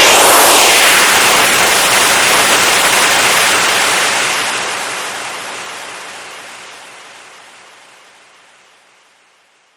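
Compressed air hissing out in a loud, steady rush that starts abruptly, holds for about four seconds, then slowly fades away to nothing.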